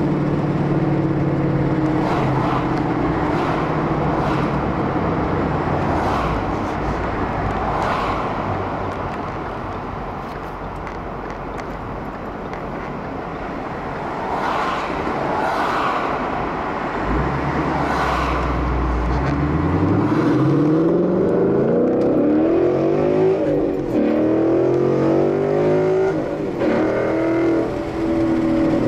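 Car engine with prominent air intake noise, running at a steady pitch at first. From about twenty seconds in it revs up in several rising sweeps.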